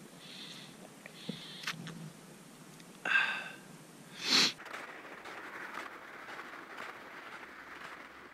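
A man drinking from a bottle, then a sharp breath and a sniff about three and four seconds in, followed by a faint steady hiss.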